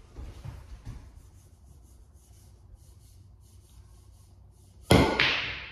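Several quiet seconds, then about five seconds in a sharp clack of a pool cue striking the ball, with the balls knocking and fading away after it.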